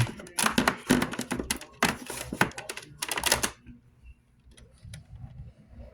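Plastic CD jewel cases clacking and clicking against each other as they are handled and moved, a rapid run of clicks that stops about three and a half seconds in.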